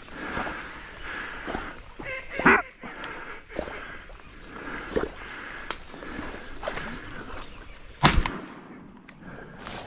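Duck quacking and calling throughout, loudest about two and a half seconds in, then a single shotgun shot about eight seconds in, the loudest sound.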